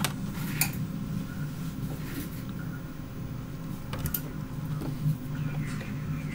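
A few light clicks and taps of small tools and parts being handled during an electronics repair, over a steady low hum.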